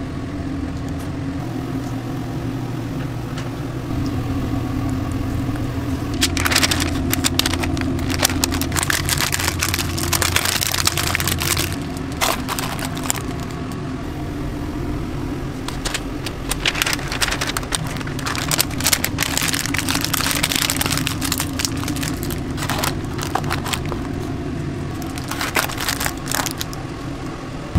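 Burger wrapping paper crinkling and crackling in repeated bursts as burgers are folded into it, over a steady low mechanical hum.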